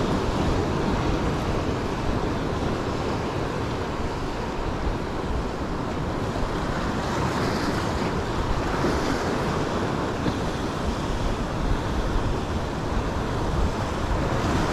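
Ocean surf washing against the rocks in a steady wash, with wind buffeting the microphone.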